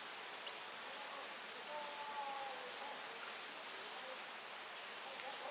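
Steady, high-pitched chorus of insects. A faint hum that falls slightly in pitch runs from about two to three seconds in.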